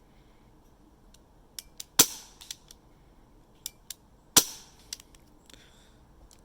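Colt M1911 CO2 non-blowback airsoft pistol firing two sharp shots about two and a half seconds apart, with a few lighter clicks around them.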